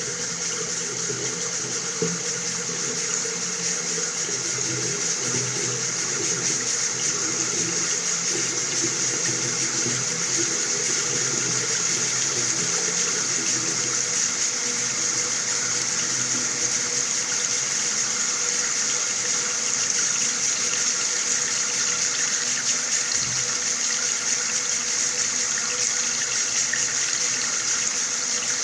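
Water running steadily from a tap: an even, unbroken rushing hiss.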